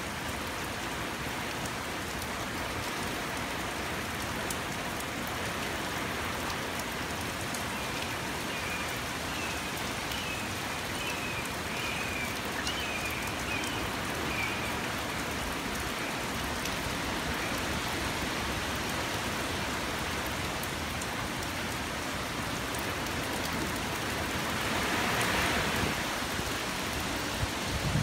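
Steady heavy rain from a hurricane's outer band, falling and pattering on surfaces as an even hiss. It swells briefly a little before the end.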